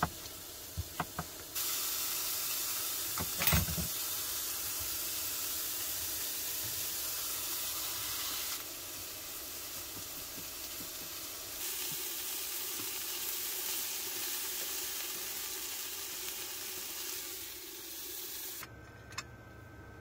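Food sizzling in a frying pan on a stovetop, with a spatula stirring it. A few light knocks come just before the sizzle starts about a second and a half in. The sizzle cuts off suddenly shortly before the end as the pan comes off the heat.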